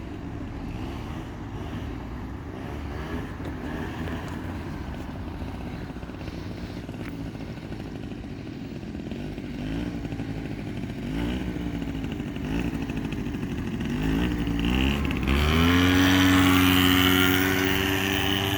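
Dinli Dino 50cc quad's small engine running at low revs, then revved up and down a few times. About fifteen seconds in it climbs sharply and holds at high revs, its loudest point.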